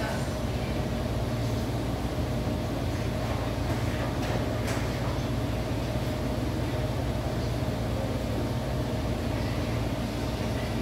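Steady low machine hum with a faint steady tone above it, and a light click about four and a half seconds in.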